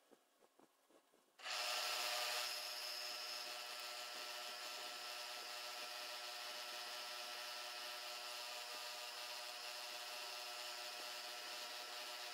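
Milling machine spindle starts about a second and a half in and runs steadily with a whine of several steady tones, a small drill bit cutting holes through an aluminium plate.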